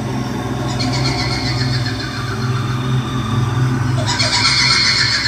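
Horror sound effect: a low steady drone under a high, quavering woman's voice, the kuntilanak ghost's laugh. The voice comes in about a second in and again, louder, about four seconds in.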